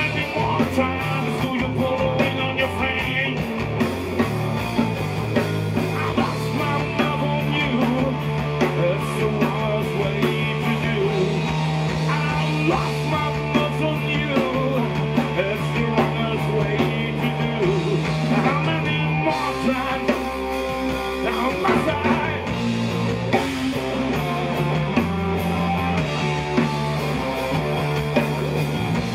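A live blues-rock band plays: overdriven electric guitar over bass guitar and a drum kit, at a steady driving beat. The bass line changes notes about two-thirds of the way through.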